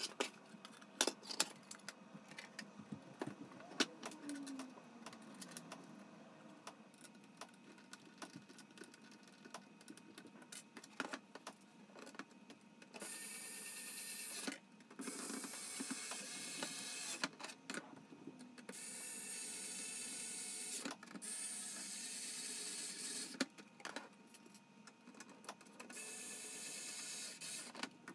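Small cordless electric screwdriver whirring in several runs of a few seconds each, starting about halfway in, driving M3 screws into 3D-printed PLA planks. Before that come scattered clicks and taps of plastic parts and small screws being handled.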